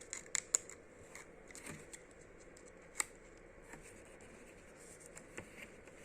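Stickers and their packaging being handled: a quick run of small sharp clicks about half a second in, one louder click about three seconds in, and light paper-and-plastic rustling between them.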